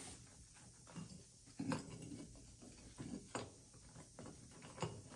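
A few faint, scattered clicks and knocks of hand tools, a pair of pliers among them, being handled and set down.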